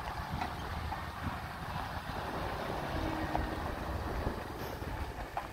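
1983 GMC 6500 grain truck's gasoline engine running low and steady as the truck rolls past, with its tyres on gravel.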